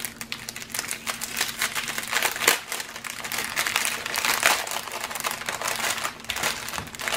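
Clear plastic bag of diamond-painting drill packets crinkling as it is handled and opened by hand, with many small irregular crackles throughout.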